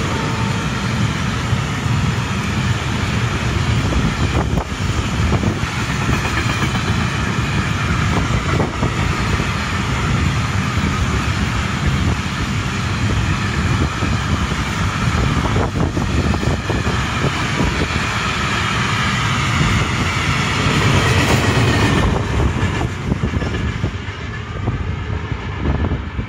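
Locomotive-hauled train passing at speed: a steady loud rumble of wheels on rail with a few sharp knocks from rail joints. Near the end it eases off as the train draws away.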